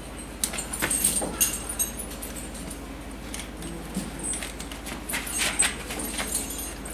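Heavy steel tire chain on a snowplow truck wheel clinking and rattling in irregular short jingles as it is fitted and tightened by hand.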